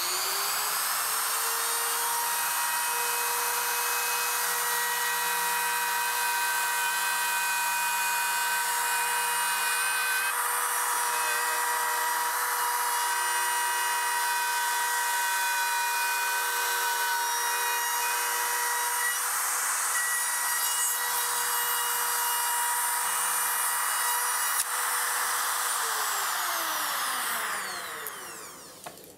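DeWalt router running at full speed, its bit cutting a groove through plastic laminate and plywood on the pass to final depth: a steady motor whine over the hiss of the cut. Near the end the motor is switched off and winds down, its pitch falling.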